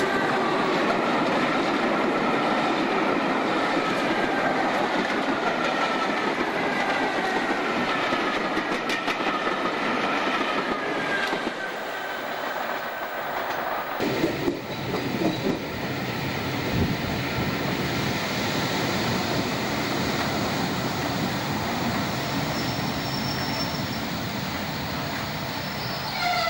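Class 415 4EPB slam-door electric multiple unit running past close by, wheels clattering over the rail joints, with a whine that slowly falls in pitch. About 14 s in the sound changes to another EPB train running on the line.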